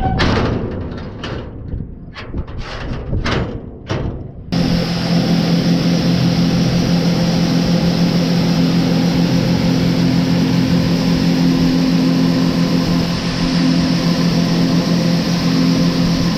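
Irregular noisy bursts for the first few seconds, then, about four and a half seconds in, the sound switches abruptly to a farm machine's engine running steadily with a constant low hum.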